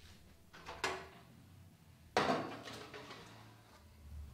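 Kitchen oven door being opened: a light click a little under a second in, then a louder clunk just after two seconds that dies away, followed by faint handling.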